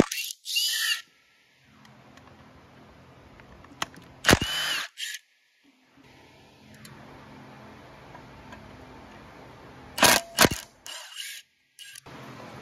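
Cordless power driver spinning out the stator's mounting bolts in short bursts: a run near the start, another about four seconds in, and a pair about ten seconds in.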